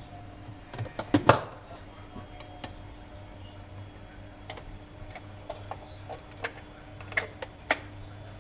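Scattered clicks and knocks from handling a Hurom juicer that will not start, with a loud cluster of knocks about a second in and two more near the end. A faint steady hum runs beneath.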